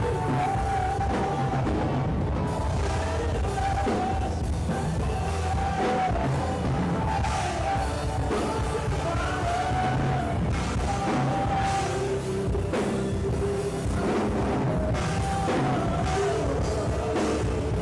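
Live worship music with a drum kit and a held, wavering melody line over a steady low accompaniment.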